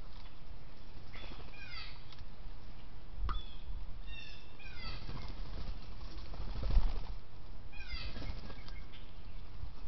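A songbird singing three short phrases of quick falling whistled notes, about a second and a half, four and a half and eight seconds in, over a steady low outdoor rumble. A single low thump sounds near seven seconds.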